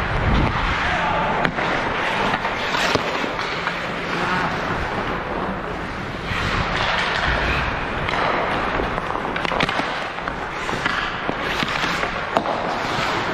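Ice hockey play in an echoing rink: skates scraping the ice under a steady wash of noise, with sharp clacks and knocks of sticks, puck and boards scattered throughout.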